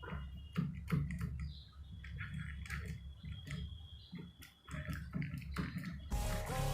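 Irregular light clicks and knocks of small car parts being handled and fitted, with a faint steady high tone in the middle. Electronic dance music comes in near the end.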